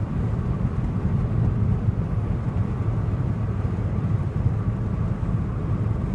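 A car driving along a road, heard from inside the cabin: a steady, even, low rumble of road and engine noise.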